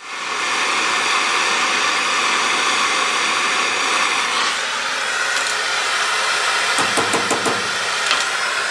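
Gas torch flame hissing steadily while heating a steel collar red-hot for a shrink fit onto a threaded rod. A few light metal clinks come near the end as the hot part is handled with tongs.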